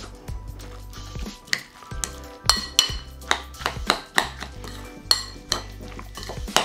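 A spoon clinking and scraping against a glass mixing bowl as coleslaw is stirred, in irregular sharp knocks about two or three a second, with background music underneath.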